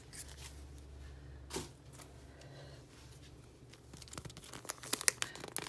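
Clear plastic sleeve around a photocard crinkling and crackling in the hands as it is handled and pulled at. The crackling picks up about four seconds in, after a quiet stretch broken by a single soft tap.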